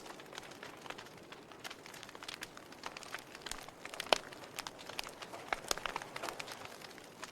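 Wood fire burning with irregular crackles and pops over a soft steady hiss, one sharper pop about four seconds in.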